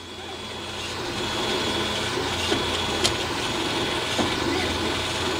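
OO gauge model locomotive, a Hornby Terrier, running on the layout with its small electric motor humming. The hum grows louder over the first second or so and then holds steady, with a few light clicks along the way.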